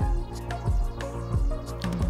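Background music with a steady beat: a deep kick drum about every two-thirds of a second over held bass notes, with light high percussion between the kicks.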